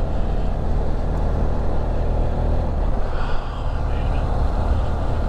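Adventure motorcycle engine running steadily while riding.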